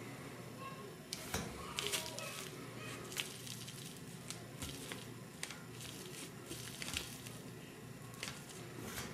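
Plastic zip-top bag crinkling as it is handled: irregular sharp crackles and clicks, thickest about a second in and again through the second half, over a steady low hum.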